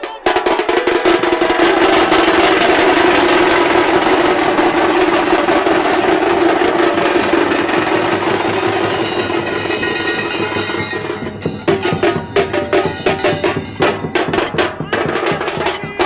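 A group of dhol drummers playing a fast, loud beat together. From about eleven seconds in, the separate drum strokes stand out more clearly.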